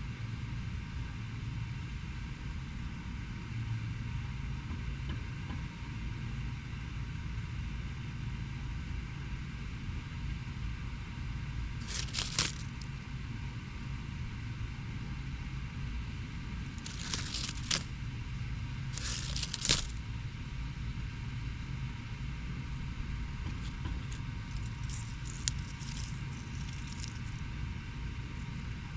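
Steady low rumble of distant urban traffic, with three short dry crackling rustles in the middle and a few fainter crackles near the end.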